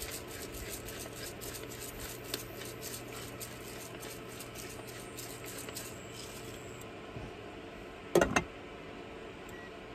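Hand-held pepper mill grinding, a rapid run of faint crunching twists that stops about seven seconds in, over a steady low hum. About eight seconds in, a loud clank as a spoon strikes the metal pot.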